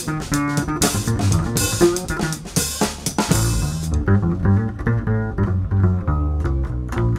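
Instrumental swing jazz with drum kit, double bass and plucked strings. About four seconds in the drums and cymbals drop out, leaving the bass line and plucked string notes.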